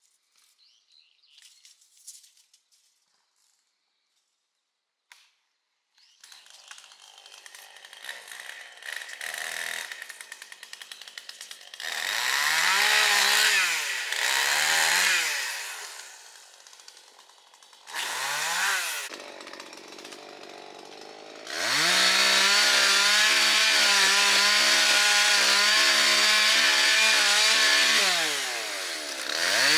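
Two-stroke chainsaw idling, blipped up to high revs three times, then held at full throttle for about six seconds as it cuts wood. It drops back toward idle and revs again near the end.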